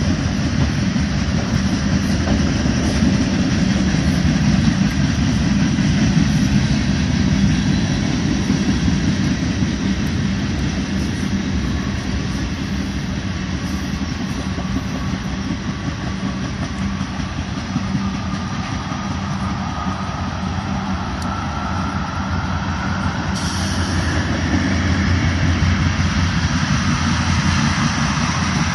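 Freight train of tank cars rolling past, a steady rumble of steel wheels on rail. A faint rising whine joins in the second half.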